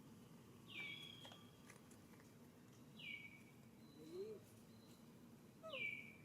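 An animal calling: a short, high call that slides down in pitch, repeated three times at an even pace about every two and a half seconds, with a fainter, lower call about four seconds in.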